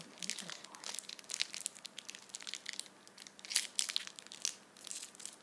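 Plastic-foil wrapper of a Match Attax trading-card pack being crinkled and torn open by hand: a run of irregular crackles and rips as the stubborn pack resists opening.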